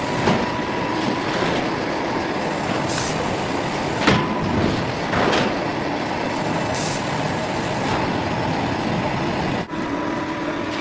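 Machinery of an automatic plywood hot press line running: a steady mechanical din with a hum, a few sharp knocks and short high hisses of air.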